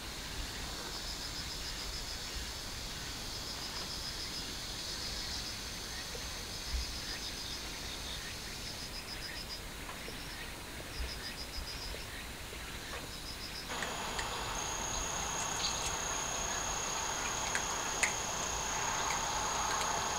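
Insects chirping outdoors in short, repeated trains of rapid high-pitched pulses, like crickets. About two-thirds of the way through, a cut brings a louder background with a steady high-pitched insect drone and a few faint clicks.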